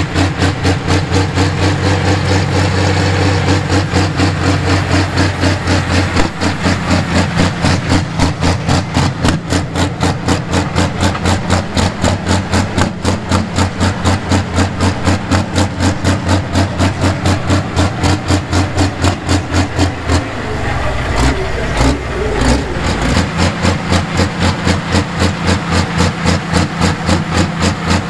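Pro Stock pulling tractor's turbocharged diesel engine idling with a rhythmic pulsing lope, about four beats a second. About twenty seconds in the pulsing gives way to a deeper rumble for a couple of seconds, then the beat returns.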